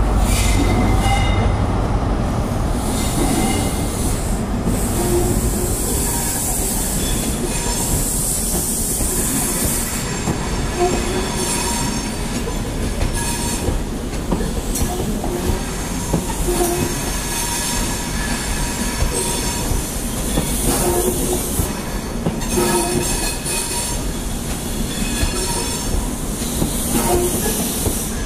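CrossCountry HST departing: the Class 43 power car's diesel engine is loudest in the first couple of seconds as it pulls away. Then the Mark 3 coaches roll slowly past, with wheel squeal on the curved track and intermittent clicks over the rail joints.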